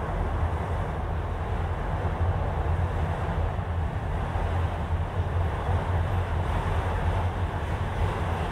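Freight train of autorack cars rolling past at a steady pace: a continuous low rumble of steel wheels on the rails.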